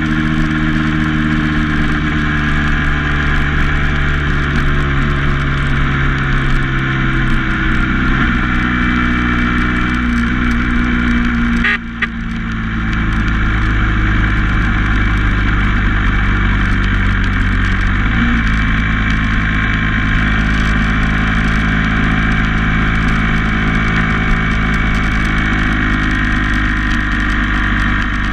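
Motor vehicle engine running steadily while driving along a paved road. About twelve seconds in there is a brief break in the sound, after which the engine's note is lower.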